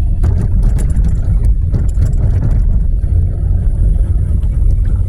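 A car driving: steady low engine and road rumble, with a few small clicks and knocks.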